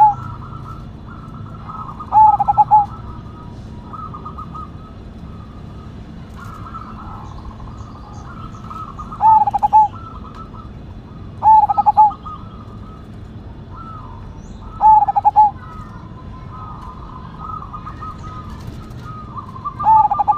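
Zebra dove (perkutut) singing its rapid, trilled coo phrase about five times, each phrase about half a second long and several seconds apart. Fainter, higher bird chirps carry on between the phrases.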